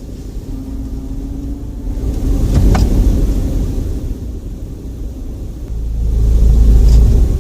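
Low cabin rumble of an Opel Meriva B driving slowly, swelling twice, with a brief sharp squeak about three seconds in and again near the end. The squeaking and grinding come from behind the radio in the centre console and stop when air recirculation is switched on, which the owner ties to the air recirculation mechanism.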